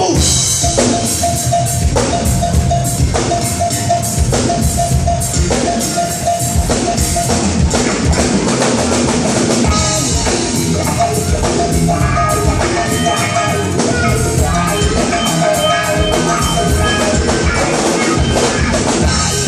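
Live band playing an instrumental passage: a drum kit keeps a steady beat of closely spaced hits under sustained guitar or keyboard notes, with no singing.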